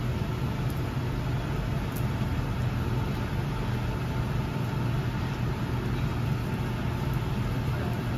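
A steady low mechanical hum over a constant background noise, with a couple of faint clicks.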